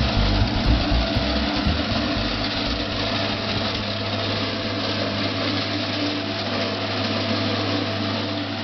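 John Deere farm tractor's diesel engine running steadily as it drives along a road, a constant low hum under an even hiss.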